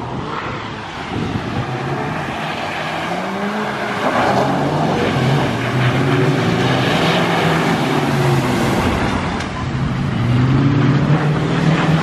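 Truck engines revving repeatedly, the pitch rising and falling several times, over a steady rushing hiss as the trucks drive through floodwater.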